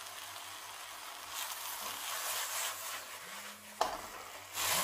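Spatula stirring a thick bitter gourd masala in a hot nonstick wok, with faint sizzling. There is a single sharp tap near the end, and the sizzle grows louder just after it.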